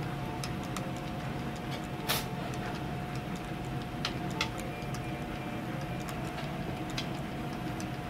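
Sn3 narrow-gauge model freight train rolling past, its wheels clicking irregularly over rail joints and turnouts above a steady low rumble and a thin constant hum.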